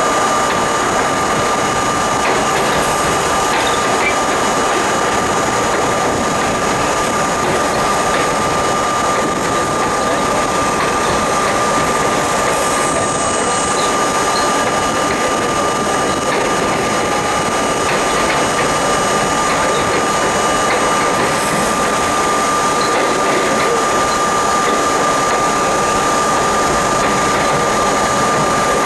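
R32 subway train running at a steady pace: a loud, even rumble of wheels on rail and running gear, with a constant high tone over it.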